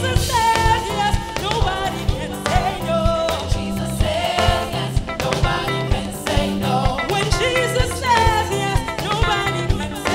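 Live gospel music: a woman sings lead into a microphone over a band with drums, bass and guitars.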